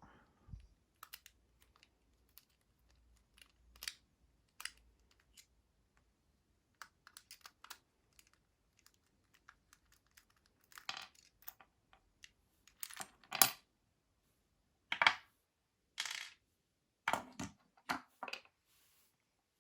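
American Lock AL1106 padlock being taken apart by hand: scattered metallic clicks and taps as the top screw is backed out and the core is worked free. There are louder clattering clusters in the second half.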